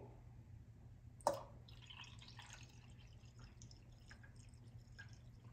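A sharp click about a second in, then boiled water poured in a thin stream into a ceramic mug of coffee, a faint trickling splash.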